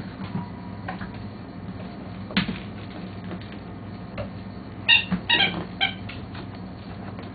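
Border Collie puppies yipping in play: a quick run of three or four short, high-pitched squeaky yelps about five seconds in, after a single sharp sound about two and a half seconds in, over a steady low hum.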